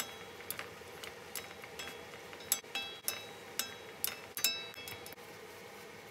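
Two wooden spatulas tossing water spinach in a wok, knocking the pan in irregular clinks that ring briefly, about seven of them, stopping about five seconds in.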